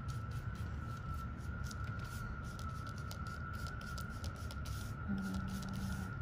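Faint soft scratching of a paintbrush spreading red paint on a paper plate, over a steady low hum and a thin high-pitched whine.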